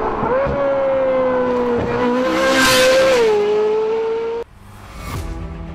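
Car sound effect: a long, steady squealing tone like skidding tyres, with a rushing swell in the middle, cutting off abruptly about four and a half seconds in. Quieter music follows.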